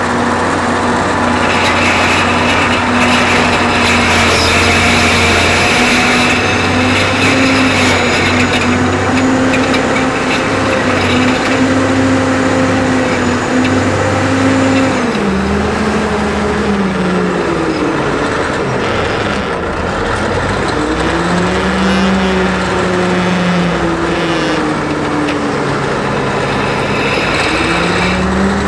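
Diesel engine of a Caterpillar 988A wheel loader working hard. It holds a steady high speed for about the first fifteen seconds, then its pitch repeatedly drops and climbs as the load and throttle change.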